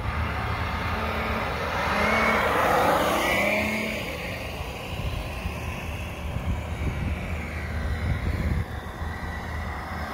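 A 1/10-scale Imex HG-P408 RC Humvee driving at speed. Its whine rises and then falls in pitch as it passes, loudest about two to four seconds in, then carries on more quietly as it runs farther off.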